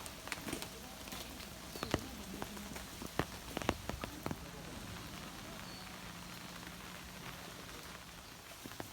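Steady rain falling, with scattered sharp ticks of single drops landing at irregular intervals.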